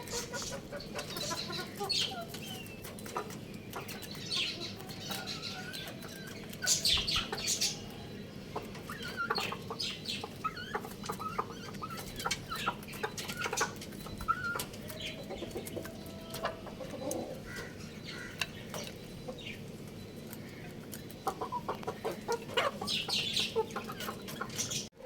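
Young chickens clucking and chirping: many short high peeps mixed with lower clucks, in uneven bursts.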